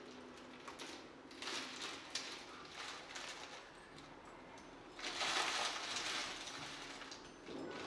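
Thin plastic bag of small white pebbles rustling and crinkling as a hand reaches in and takes pebbles out. The rustling comes off and on, loudest for about a second and a half starting about five seconds in.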